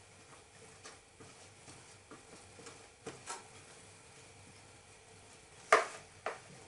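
Spatula scraping and knocking against a plastic mixing bowl as cake batter is scraped out into a baking pan. Faint scrapes and ticks, a couple of soft knocks about three seconds in, and two sharper knocks near the end, the first the loudest.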